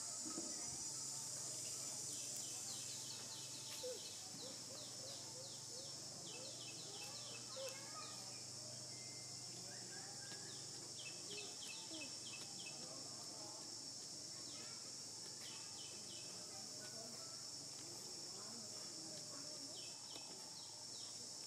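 Outdoor insect chorus: a steady high-pitched drone, with runs of quick, repeated chirps that come and go from about three seconds in.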